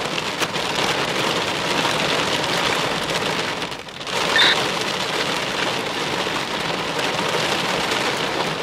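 Heavy thunderstorm rain pelting a car's roof and windshield in a steady, dense rush. It dips briefly nearly four seconds in, followed by a short high squeak.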